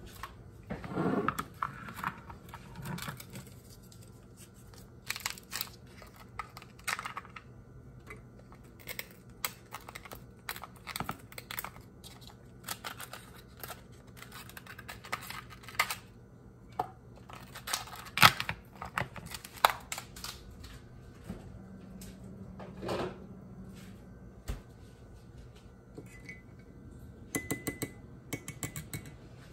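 Irregular clicks, knocks and rustling from things being handled indoors, with a crinkling rustle near the start and a sharper knock about eighteen seconds in, over a faint steady hum.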